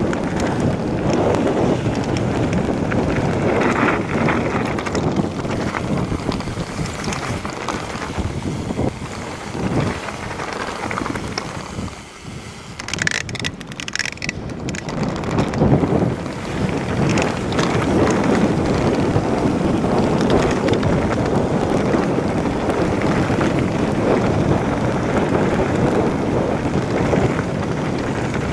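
Wind buffeting the microphone on a fast mountain-bike descent, with the tyres running over a gravel track underneath. The noise eases briefly about twelve seconds in, then picks up again.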